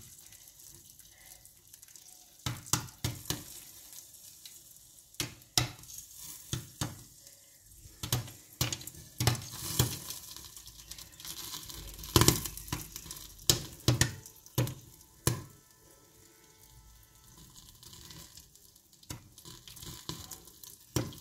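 The last popcorn kernels popping in a covered pan of hot ghee and sugar after the burner is turned off, cooking on the remaining heat. Scattered sharp pops come at irregular intervals over a faint sizzle, with a few seconds without pops late on: the popping is dying down, the sign that the batch is nearly done.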